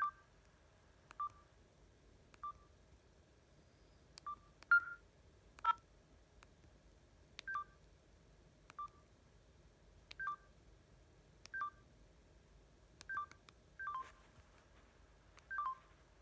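Keypad of a Samsung GT-E2600 mobile phone being pressed button by button: each press gives a click and a short beep. There are about fourteen presses at an uneven pace, roughly one every second or so, with two quick ones close together around the middle and again near the end.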